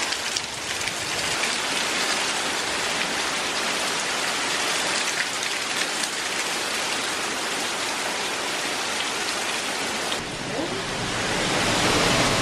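Heavy hurricane rain driven by wind, a steady loud hiss, which swells louder and deeper about ten seconds in.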